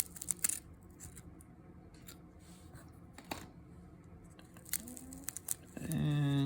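Old cardboard trading cards and wax-pack paper being handled: scattered soft clicks and light rustles of card stock.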